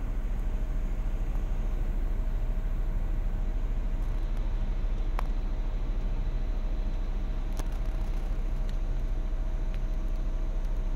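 Car engine idling with a steady low rumble, heard from inside the cabin, with a faint steady whine above it and a few light clicks.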